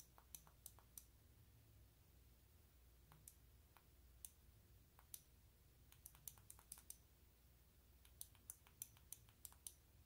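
Faint, sharp clicks of the Lumintop FW21 X9L flashlight's tail button pressed in quick runs of several clicks, with scattered single clicks between them: the six-click sequence that takes the Andúril firmware out of Muggle mode.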